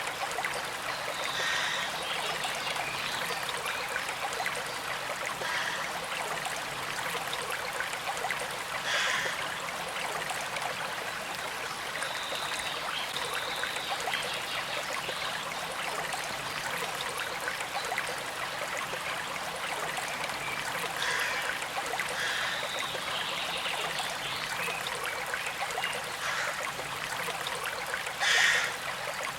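A gentle creek flowing and trickling steadily. A few brief, higher sounds stand out now and then, the loudest near the end.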